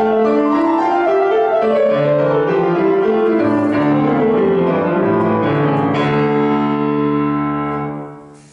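Grand piano played: a run of notes, then a closing chord struck about six seconds in, held and dying away, released near the end.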